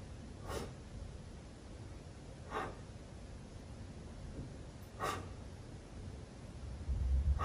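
Faint human breaths, four short ones about two seconds apart, over quiet room tone, with a soft low rumble near the end.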